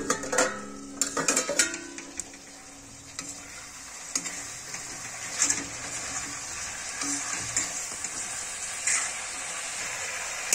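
Chicken pieces and onions sizzling in an iron kadhai while a metal ladle stirs and scrapes them, with metal clinks in the first two seconds as the steel lid is lifted off and a clink near the end as it comes back down.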